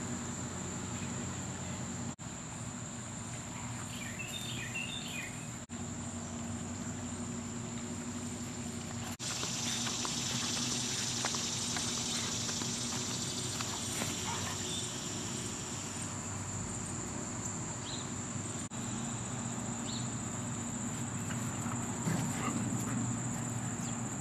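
Outdoor ambience of insects buzzing steadily, over a low hum, with a few brief dropouts.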